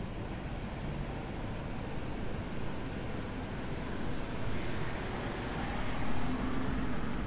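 A black 2021 Lexus LX SUV driving slowly past at low speed, engine and tyres growing louder and peaking about six seconds in as it passes close by.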